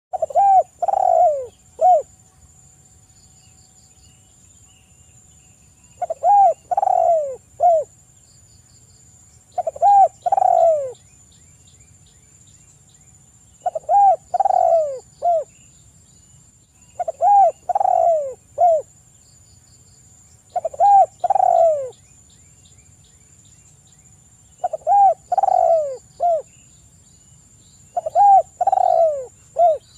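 Spotted dove (tekukur) singing its "kuk 3" song: a phrase of three or four low coos repeated every three to four seconds, eight phrases in all.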